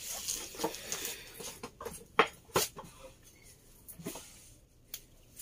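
Scattered light knocks and clicks of furniture and boxes being handled and shifted, the loudest about two seconds in.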